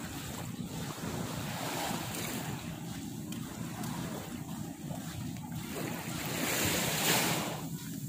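Small waves washing onto a sandy shore, mixed with wind rumbling on the microphone. The rushing noise swells to its loudest about seven seconds in.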